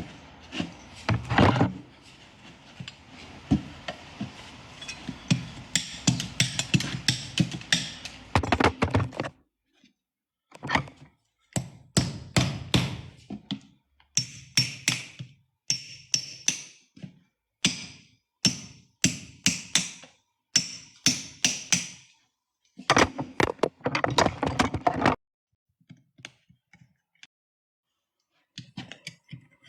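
Farrier tools working a horse's hoof: a stretch of scraping, then a run of short, sharp knocks and cutting strokes, broken by several abrupt silences.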